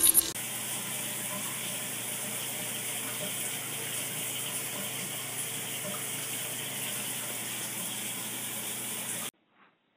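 Running water: a steady, even rush that cuts off suddenly near the end.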